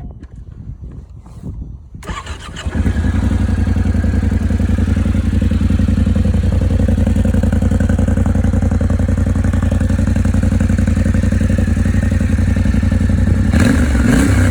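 Yamaha Ténéré 700 parallel-twin on its stock exhaust: after a few faint clicks it is started about two seconds in, catches at once and settles into a steady idle. Near the end the throttle is blipped briefly, the revs rising and falling back.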